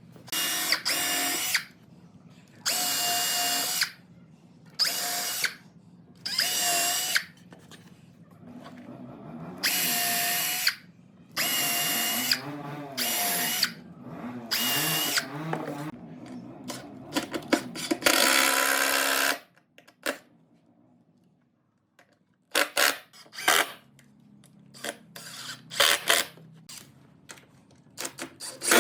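Electric drill running in about nine short trigger bursts of a second or so each, with its steady motor whine. Near the end come a series of short clicks and knocks.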